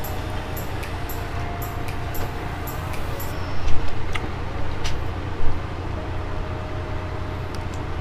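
Hand-eating sounds from a mukbang: fingers picking fried fish and rice off plates, with small clicks and chewing, and two louder knocks about three and a half and five and a half seconds in. A steady low rumble runs underneath.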